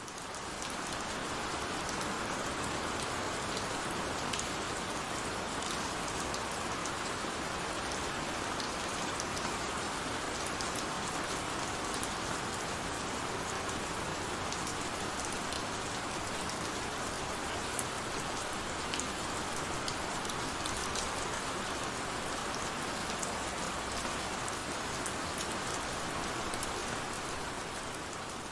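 Steady heavy rain: an even hiss with scattered sharp drop ticks, swelling up over the first second and then holding level.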